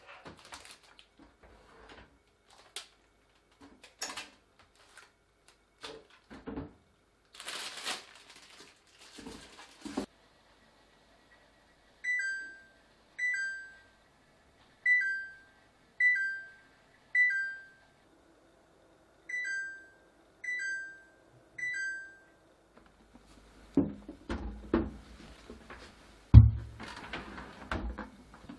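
Plastic food containers clicking and knocking as they are handled and set down, then an appliance's electronic beeper sounding eight falling two-note beeps about a second apart, followed by more knocks and one loud thump.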